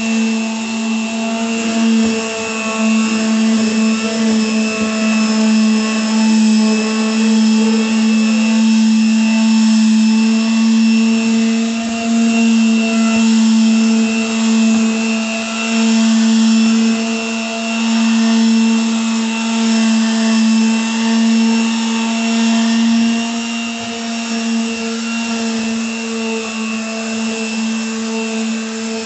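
Electric hand sander running steadily on old wooden floorboards: a constant motor hum, with the pad rubbing on the wood and the level wavering a little as it is pushed back and forth.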